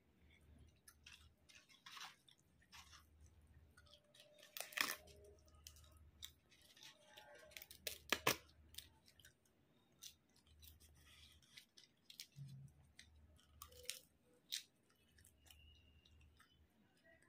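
Chewing and crunching of crisp papad, with scattered sharp cracks as the papad is broken by hand; the loudest cracks come about five and eight seconds in.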